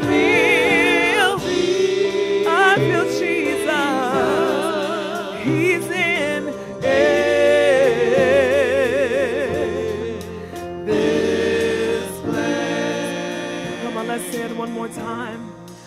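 Solo female gospel singer holding long notes with wide vibrato and sliding runs, over sustained keyboard chords. The music fades out near the end.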